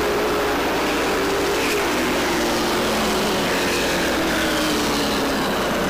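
Stock car engines running around the short-track oval: a steady, dense engine noise, with the engine tones drifting slowly down in pitch.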